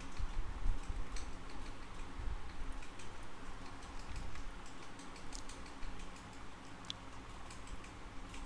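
Faint, irregular clicks of a computer mouse and keyboard over a low, steady room hum.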